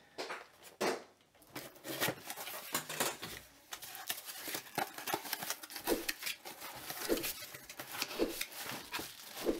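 A cardboard box and its packaging being handled and opened: irregular taps, clicks and rustling.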